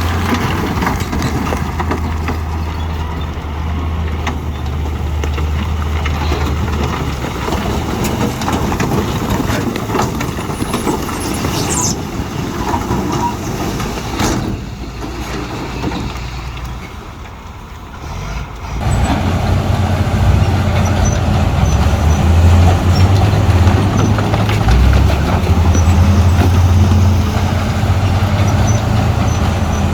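Diesel engine of heavy earthmoving machinery running with a deep, steady hum. It eases off about halfway through and comes back louder about two-thirds of the way in, as the machine works under load again.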